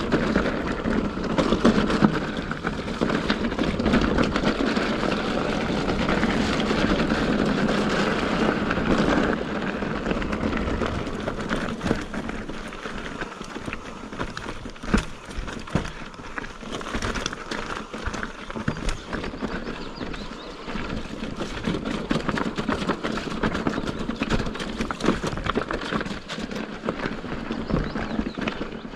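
Mountain bike ridden over rough trail: tyre and wind noise with the bike's rattles and knocks. It is louder for the first nine seconds or so, then quieter, with scattered clicks and knocks.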